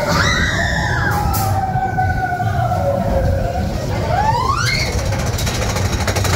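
Big Thunder Mountain Railroad mine train roller coaster running with a low rumble. Long high wailing tones glide slowly downward, then a wail rises sharply about four seconds in. Rapid even clicking starts near the end.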